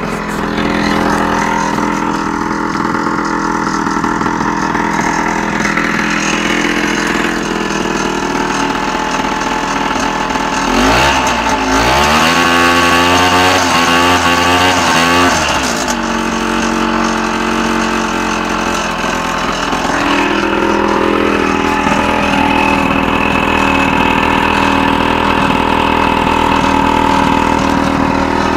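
Scooter engine idling, revved up about a third of the way in and held for several seconds before dropping back to idle, then given a shorter blip later on. The owner's complaint is that it sputters and loses throttle.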